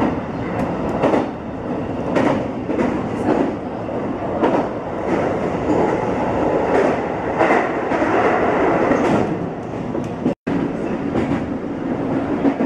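Electric commuter train running at speed, heard from inside at the front window: a steady rumble with irregular clacks of the wheels over rail joints. The sound drops out for an instant about ten seconds in.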